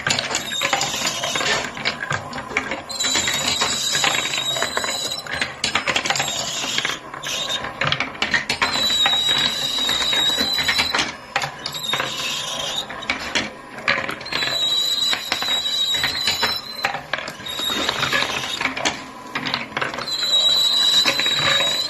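Marbles rolling and clattering down a handmade wooden marble run: a dense, steady rattle of clicks as they roll and drop along the wooden tracks. A high ringing whir returns about every six seconds.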